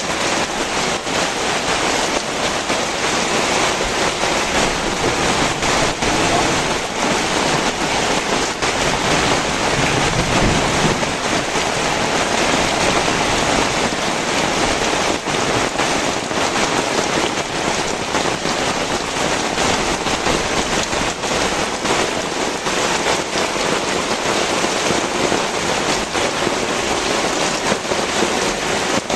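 Heavy rain pouring down steadily: a dense, even hiss of countless drops striking the ground and surfaces, holding constant throughout.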